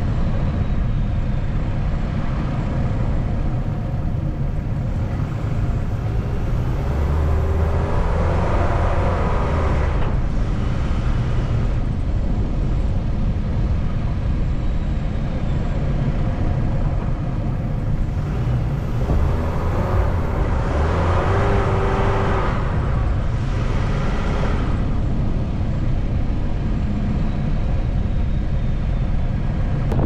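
Car driving slowly on a snow-covered street, heard from inside: a steady low engine and tyre rumble that swells twice, about a third of the way in and again around two-thirds through.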